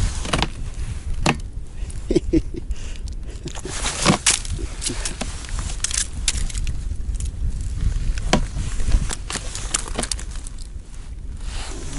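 A small freshly caught fish flopping and slapping on the ice, with sharp irregular knocks and clothing rustle as it is handled and grabbed, over a steady low rumble.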